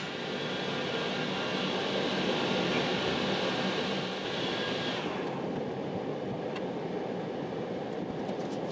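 A machine running steadily with a low hum. Its higher hiss falls away about five seconds in, and faint ticks follow near the end.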